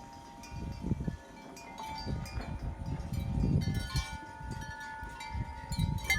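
Soft chime tones ringing, several held notes starting one after another and overlapping, over low irregular rumbling and thuds.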